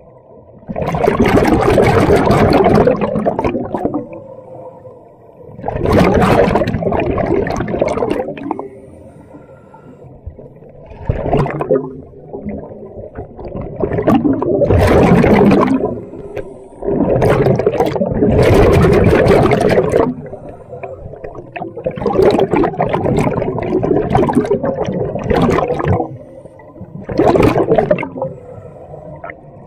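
Scuba diver breathing through a regulator underwater: a loud rush of exhaust bubbles with each exhale, about seven bursts of two to three seconds each, at a steady breathing rhythm with quieter gaps between.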